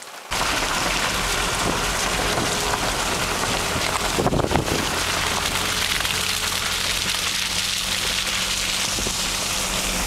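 Truck driving on a wet, muddy dirt road in the rain: a loud, steady hiss of rain and wet tyres over a low engine hum. The sound starts abruptly just after the beginning.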